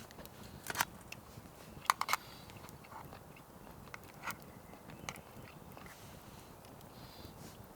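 A dog chewing its food: sharp crunches of dry kibble, a few single bites and a quick double crunch about two seconds in, spaced irregularly.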